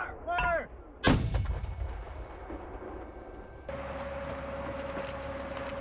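A vehicle-mounted mortar fires once, about a second in: a single sharp blast with a ringing tail. After an abrupt change later on, an armored vehicle's diesel engine runs steadily with a constant tone.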